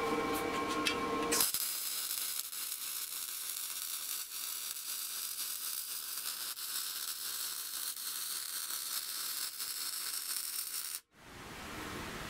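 Wire-feed (MIG) welding arc from a Lincoln 210MP welder, a steady dense crackling sizzle that starts about a second and a half in and cuts off sharply near the end. Before it there is a steady hum with several pitches; after the cut a plain steady hiss.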